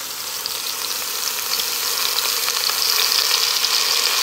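A beef roast sizzling and crackling in hot oil in the stainless inner pot of a Pampered Chef Quick Cooker on its sear setting, growing louder about a second and a half in.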